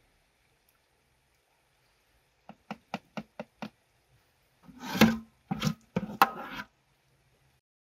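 A metal ladle tapped quickly against a plastic jar, about six light knocks, to shake thick tomato paste off into it. Louder knocks and scraping of the ladle and spoon against the jar and the metal pot follow, starting about five seconds in.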